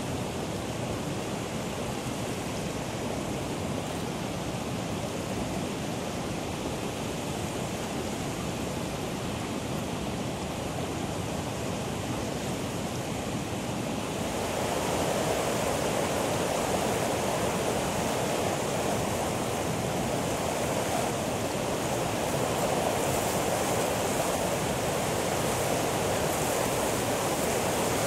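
Fontan Geyser jetting steam and water: a steady rushing noise that grows louder about halfway through.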